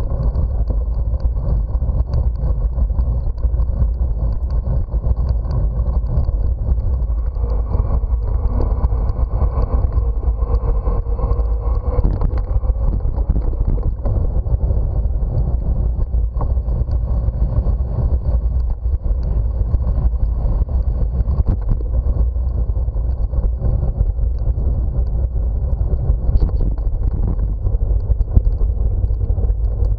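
Wind buffeting the microphone of a camera on a bicycle being ridden, a steady low rumble. A faint hum comes and goes in the middle.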